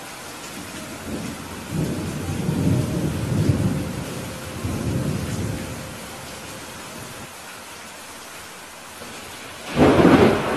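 Steady rain with thunder: a low rolling rumble swells and fades in the first half, then a sharp, loud thunderclap breaks near the end.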